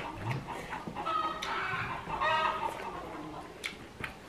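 A bird calling a few times in the background: short pitched calls about a second in and again just after two seconds.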